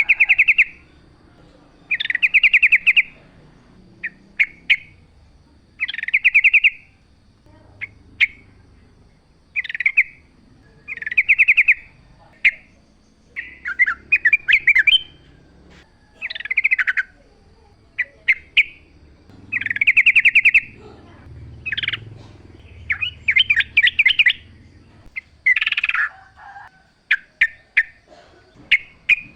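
Yellow-vented bulbul (trucukan) singing: short, bubbly, chattering phrases about a second long, repeated every two seconds or so, with quick sharp notes between them.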